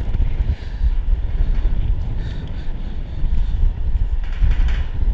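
Wind buffeting the microphone of a body-worn camera high up on a tower crane: a loud, gusty low rumble that swells and eases.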